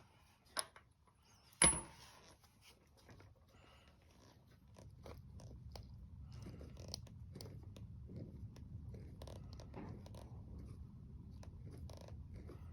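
Small metal clinks and scrapes of a nut being threaded onto a garden tractor's front wheel spindle, with one sharp ringing metallic clink about a second and a half in. A low steady rumble sits underneath from about five seconds in.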